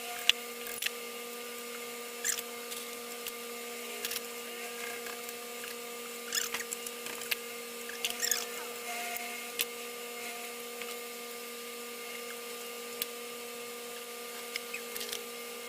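Scattered metallic clicks and taps of hand tools as an air compressor's cylinder is unbolted and taken off, over a steady faint hum.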